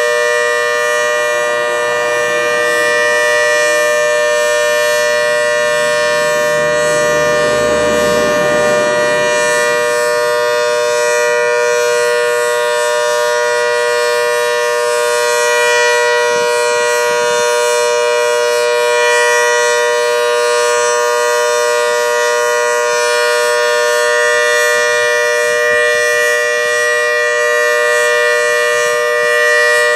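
Federal Signal Model 2T dual-tone civil defense siren sounding a steady alert, its two tones of about 491 and 620 Hz held together without break.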